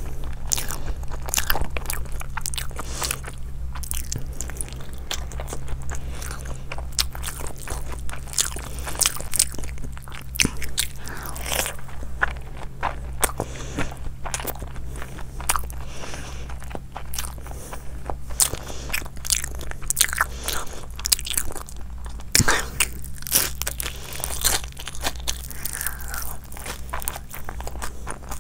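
Close-up sounds of a person biting and chewing food: many irregular small crunches and mouth clicks, over a steady low hum.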